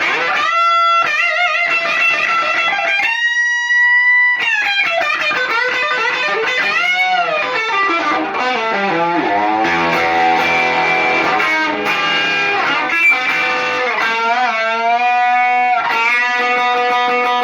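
Electric guitar played through a JOYO Tauren overdrive pedal with the gain all the way up: bluesy riffs with string bends and held notes, in a crunchy, gritty overdriven tone.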